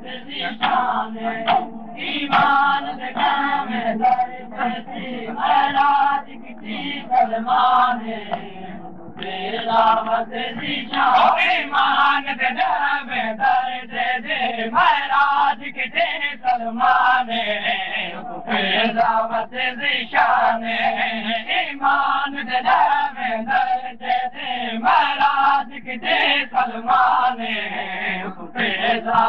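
Men's voices chanting a Shia noha (mourning lament) in unison, the refrain repeated in a steady rhythm.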